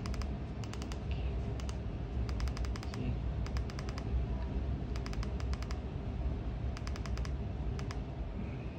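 Plastic buttons of a TV-box remote control clicking in quick runs of several presses, about one run a second, over a steady low hum.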